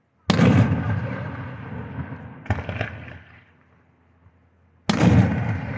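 Fireworks shells exploding close by: three sudden booms, each rolling away over a second or two. The first and last are the loudest, and a smaller one comes between them about two seconds in.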